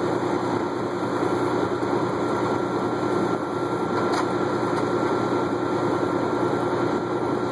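Heavy wrecker diesel engines running steadily with an even hum, with one faint click about four seconds in.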